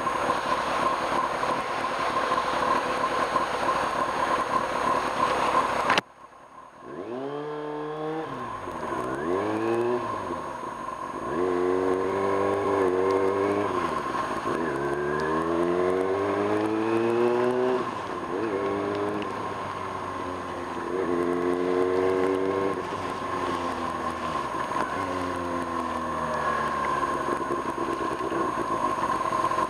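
Kawasaki Ninja ZX-6R motorcycle riding, heard at first as a loud steady rush of noise. About six seconds in, the rush drops away abruptly and the inline-four engine's note comes through clearly, rising and falling in pitch several times as the bike accelerates and slows.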